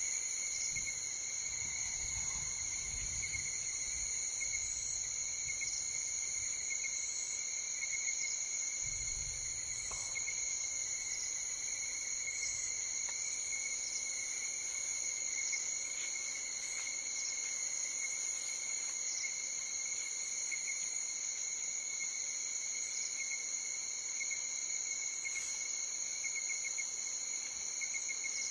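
Steady chorus of night insects, several constant high-pitched trills layered on top of each other. Two stretches of faint low rumble come in the first ten seconds.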